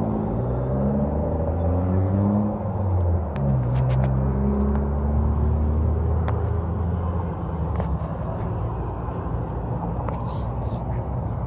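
A motor vehicle's engine accelerating, its pitch climbing in steps as it shifts up through the gears, then running steady before fading out about eight seconds in.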